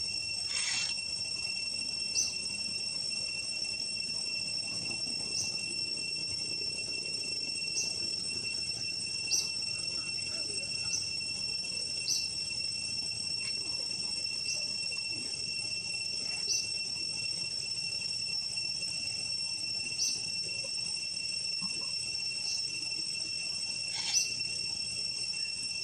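Forest insects keep up a steady high-pitched drone, with short high chirps repeating every second or two. Two brief louder sounds come just after the start and near the end.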